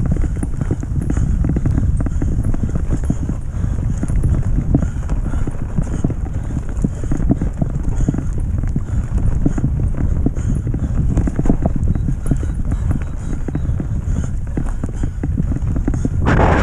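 Mountain bike ridden fast over a dirt forest singletrack: a steady low rumble from the tyres and ground, with constant rapid rattling and clicking from the bike as it bounces over the trail. A short louder burst comes near the end.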